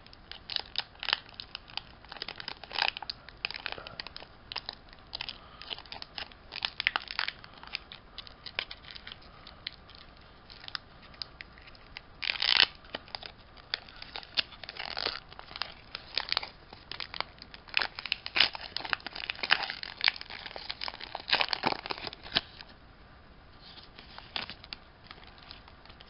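A foil Pokémon booster pack wrapper being torn open and crinkled by hand: a long run of sharp crackles and rips that stops a few seconds before the end.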